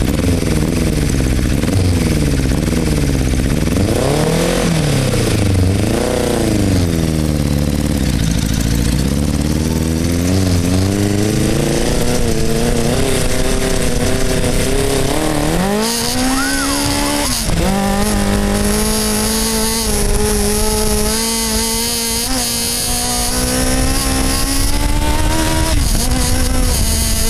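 Kawasaki Ninja 750 inline-four motorcycle engine in an off-road mini buggy, heard on board. It revs up and down repeatedly at low speed, then about halfway through accelerates hard with a steeply rising pitch. A sudden dip in pitch marks an upshift, and after it the engine runs at high revs, its pitch slowly climbing.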